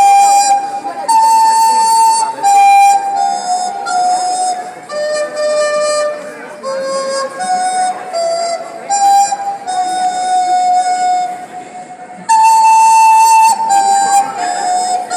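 A flute playing a slow melody one note at a time, mostly held notes stepping downward. It drops quieter shortly before twelve seconds in, then comes back with a loud high note.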